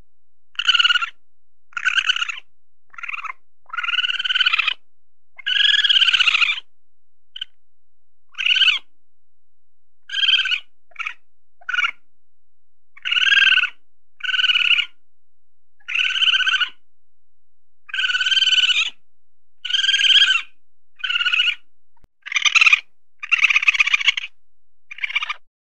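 A weasel calling over and over: about twenty short, high-pitched calls in a row, each lasting less than a second, some arching up and down in pitch.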